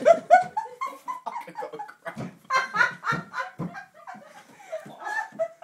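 People laughing and shrieking in bursts of high-pitched, wordless voices.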